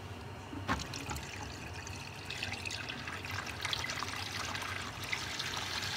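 Melted beeswax pouring in a trickling stream into a mold, growing a little stronger after about two seconds, with a single knock near the start.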